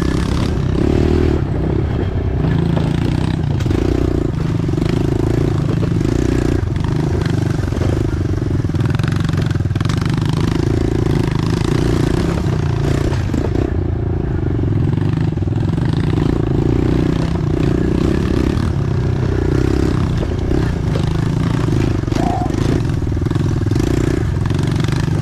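Pit bike engines running while being ridden along a rough dirt trail, the throttle opening and easing off every second or two.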